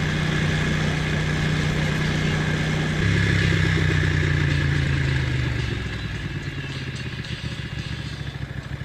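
Ducati Monster's V-twin engine running steadily under throttle, getting louder about three seconds in; then its pitch falls and it quietens as the bike slows.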